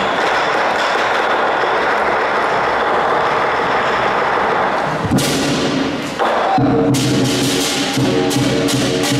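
Lion dance percussion band playing, with the big lion drum and clashing cymbals in a dense, continuous wash. About five seconds in the sound changes, and from about six and a half seconds a steady ringing tone holds under sharp strikes about three times a second.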